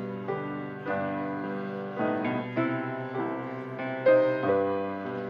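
Piano playing slow, gentle chords, each new chord struck and left to ring and fade.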